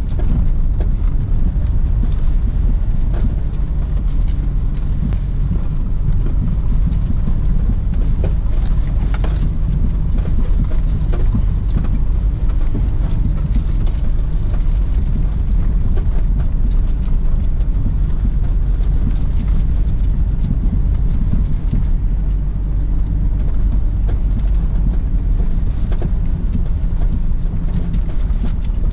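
Car driving slowly over a rutted dirt track, heard from inside the cabin: a steady low engine and tyre rumble with scattered knocks and rattles from the bumps.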